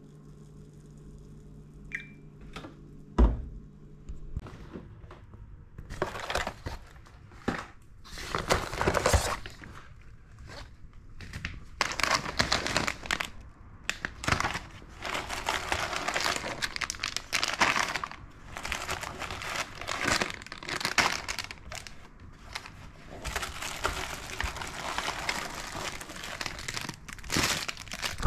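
Plastic snack packets and bags rustling and crinkling in repeated bursts as groceries are handled and unpacked, starting a few seconds in. Before that there is a low steady hum and a single sharp thump.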